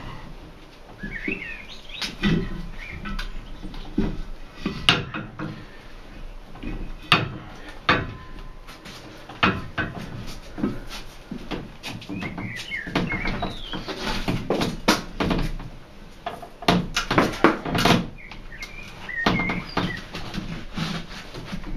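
Tire being levered onto a rim with a long tire-changing bar on a manual tire changer: repeated knocks and clanks of the metal bar against the rim, with short high chirping squeaks of the rubber bead sliding over the rim edge a few times.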